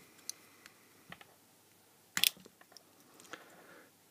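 Small plastic inline cord switch being prised apart: light plastic clicks, then one sharp snap a little over two seconds in as the case halves come apart, followed by a few lighter clicks and a soft rustle of handling.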